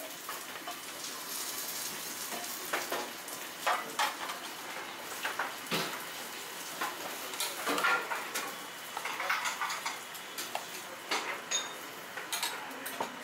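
Utensils clinking and tapping against stainless steel topping trays and ceramic ramen bowls while toppings are set out, scattered irregular clicks over a steady background sizzle.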